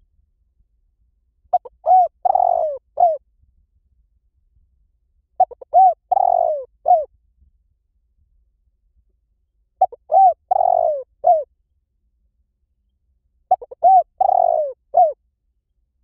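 Spotted dove cooing: a phrase of several short coos with a longer rolling note in the middle, repeated four times about four seconds apart.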